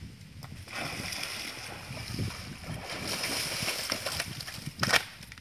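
Water splashing and churning in river shallows as someone wades through it, with one sharp knock near the end.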